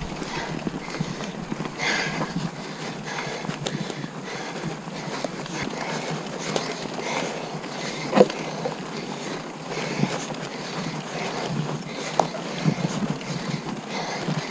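Mountain bike ridden hard over rough trail, picked up by a camera on the rider: a steady rattle and rush of tyre noise with scattered clicks and knocks, one louder knock about eight seconds in.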